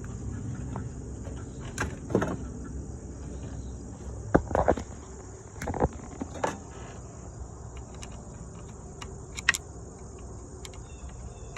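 Scattered clicks and knocks of intake parts being handled while an air filter is fitted and its clamp tightened, a few sharp ones standing out, over a steady high chirring of insects.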